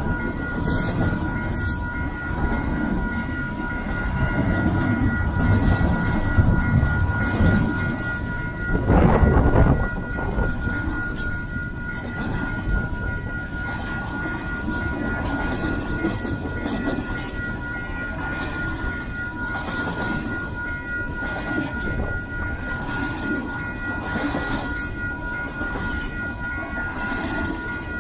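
Double-stack intermodal freight train passing close by: a continuous rumble and clatter of steel wheels on the rails, with a steady high-pitched ringing tone over it. About nine seconds in comes a louder burst of clatter lasting about a second.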